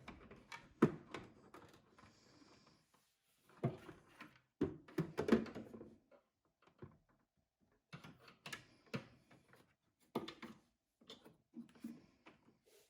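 Irregular knocks, clicks and clatter of hard objects being handled, in several short clusters with pauses between them.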